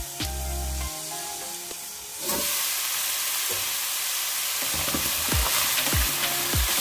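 Cubed squash, green beans and onion sizzling in a frying pan. The sizzle gets suddenly louder about two seconds in, as the lid comes off. Near the end a wooden spatula stirs the vegetables. Background music with a steady beat plays throughout.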